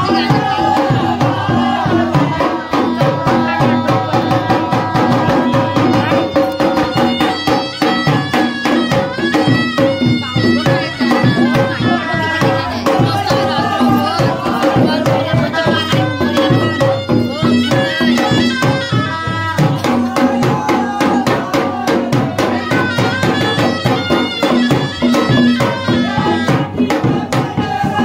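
Traditional Indian folk music with fast, dense drumming under a held melody, of the kind played at a Govinda festival.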